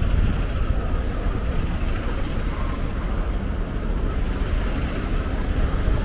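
Busy city street traffic: a steady, even rumble of buses and cars running past, with no single event standing out.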